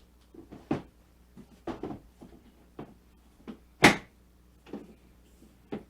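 Tools and a bag being handled: a string of light knocks and clunks, with one sharp, loud knock about four seconds in.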